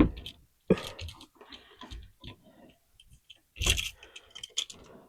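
Irregular small clicks, taps and scrapes of hands handling house wiring and a new light switch, with a brief louder clatter a little under four seconds in.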